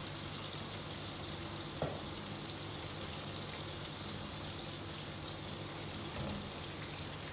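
Raw potato sticks sizzling steadily in hot oil during their first fry, with a slotted spoon stirring them. There is one sharp knock of the spoon against the pan about two seconds in, and a softer one about six seconds in.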